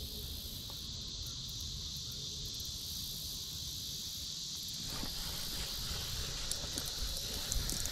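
Steady, high-pitched chorus of insects, with a low rumble of wind on the microphone underneath. A few faint clicks and rustles come in over the second half.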